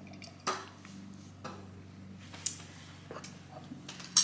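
A few sharp clinks and taps of a serving utensil against plates and bowls as food is dished out, about one a second, the sharpest near the end, over a faint low hum.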